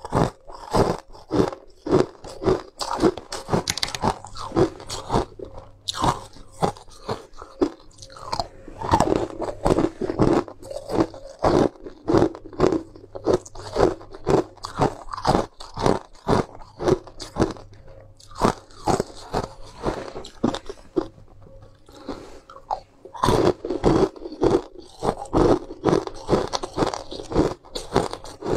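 Close-miked crunching and chewing of hard molded ice between the teeth: rapid, irregular sharp cracks, several a second, with a short lull about three quarters of the way through.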